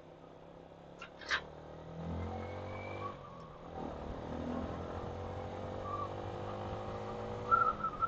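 Motorcycle engine running steadily at low revs, with a couple of short clicks about a second in.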